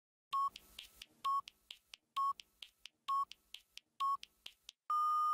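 Electronic countdown timer beeping: five short beeps about a second apart with faint ticks between them, then one longer, slightly higher beep near the end marking zero, the cue that the recording is about to play.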